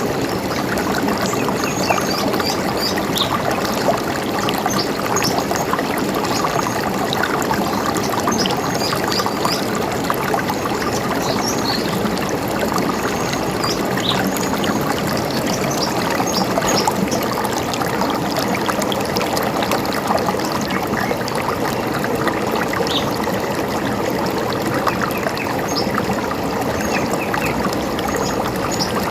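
River water running steadily, with short high bird chirps scattered throughout.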